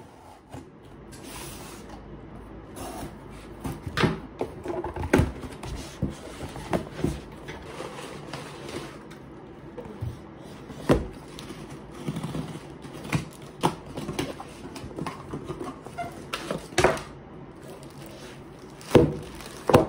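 Cardboard box being unboxed by hand: scissors slitting the packing tape, cardboard flaps folded and rustling, and an inner box and foam-packed item handled, giving a string of irregular knocks and scrapes with a few sharp bumps.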